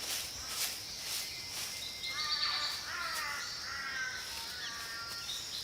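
Forest ambience: insects chirping steadily, pulsing about twice a second. A bird calls for about three seconds, starting about two seconds in.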